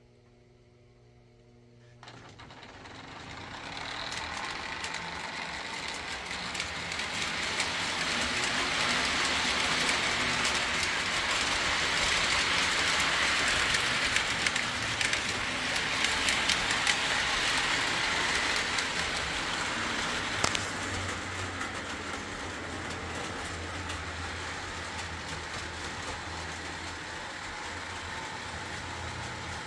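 Postwar Lionel O gauge locomotives with Pullmor motors running on three-rail track under Variac power. A faint hum gives way about two seconds in to motor whir and wheel noise with frequent clicks over the rails, which grows louder over several seconds as the train picks up speed, runs steadily, and eases a little near the end.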